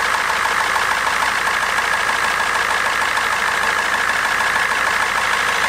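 Ford 7.3 L IDI turbo diesel V8 idling with a steady diesel clatter, heard from close up under the open hood.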